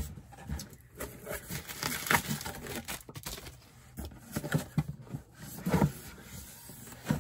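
Cardboard shipping box being opened by hand and a cardboard shoebox slid out of it: irregular scraping, rustling and light knocks of cardboard on cardboard.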